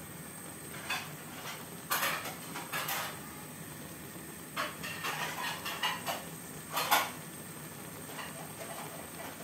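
Metal spatula scraping and stirring greens in a wok in several short bursts, the loudest about seven seconds in, over a steady low hiss from the simmering pan.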